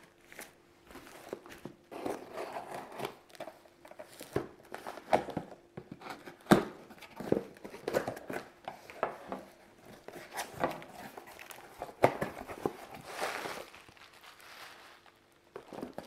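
A taped, plastic-wrapped cardboard shipping box being cut open and unpacked: a folding knife slitting the tape and wrap, plastic crinkling and tearing, cardboard flaps rustling, with scattered clicks and knocks. A longer stretch of rustling comes about thirteen seconds in.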